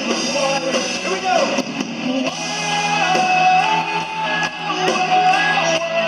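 Rock music: a full band with guitar, carrying a held melody line that bends in pitch.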